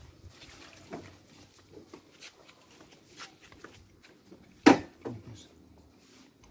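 Flip-flop footsteps on concrete and the light rattle and clicks of an electric scooter being wheeled by hand. One much louder sharp knock comes about three quarters of the way through.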